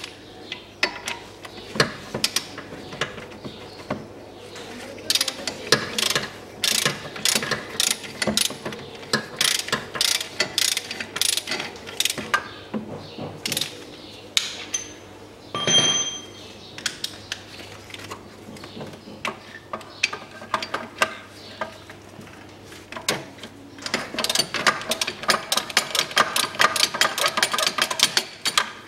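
Socket ratchet clicking in quick runs as bolts are turned out, with one ringing metal clink a little past halfway.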